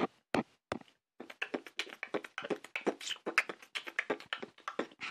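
Tapping and handling noise close to a tablet's built-in microphone: three sharp taps in the first second, then after a short pause a fast, irregular patter of softer taps and clicks.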